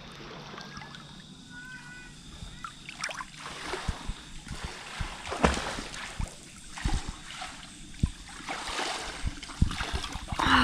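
Swimming-pool water sloshing and splashing at a camera held at the surface, with many irregular low knocks of water against the microphone and a louder splash near the end.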